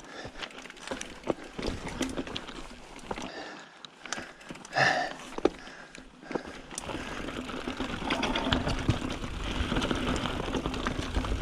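Mountain bike riding on a dirt trail: scattered knocks and rattles of the bike over rough ground, with a short sharp pitched sound about five seconds in. From about seven seconds in it turns into a steadier, louder buzzing rattle.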